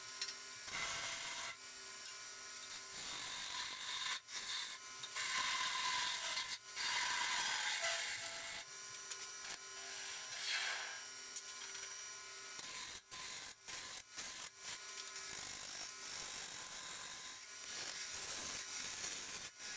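Parting tool cutting a tenon into a honey locust burl bowl blank spinning on a wood lathe: a high, scraping hiss of the cut that starts and stops and breaks off abruptly several times, over a faint steady hum of the lathe.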